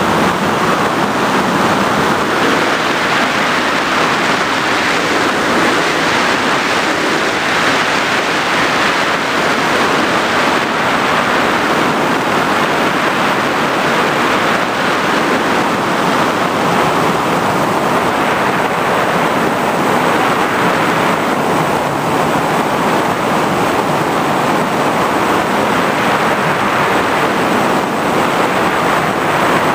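FPV racing drone in flight: a steady, even rush of wind and airflow over the onboard microphone, with no distinct motor tone.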